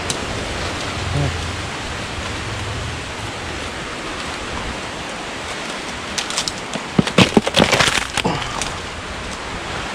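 A steady hiss with dry palm fronds and leaf litter brushing, plus a cluster of sharp crackles and snaps from about six to eight and a half seconds in as someone pushes through the fronds.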